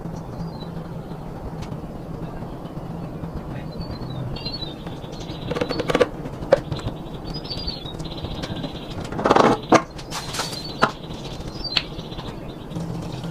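Small birds chirping in short falling calls every second or so over a steady low hum. Several sharp knocks come in the middle, with a short clatter about nine seconds in.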